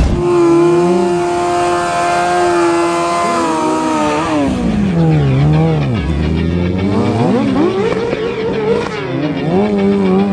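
Sport motorcycle engine held at high revs while the rear tyre spins in a smoky burnout, then revved down and up in repeated sweeps from about four seconds in.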